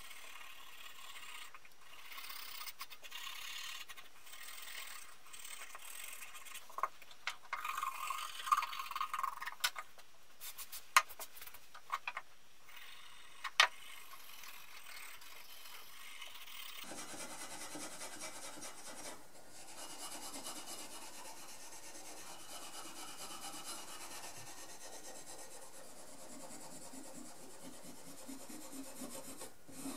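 A small pad rubbed back and forth over the wooden handle of an 1880s Richardson Bros. rip saw, a steady scratchy scrubbing. Several sharp knocks come in the middle, as the handle shifts on the wooden bench.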